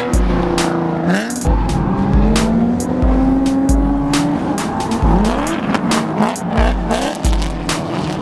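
Background music with a steady beat, over BMW drift cars' engines revving and their tires squealing as they slide.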